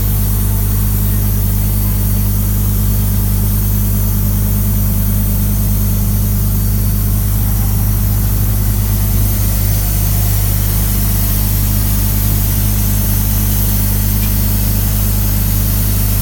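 Engine idling steadily, a constant low hum that holds the same speed throughout.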